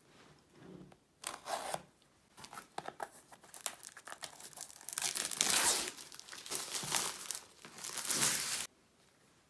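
Cellophane wrapping being torn and peeled off a cardboard box, crinkling and crackling in irregular bursts. It starts about a second in, is loudest in the middle and again near the end, then stops suddenly.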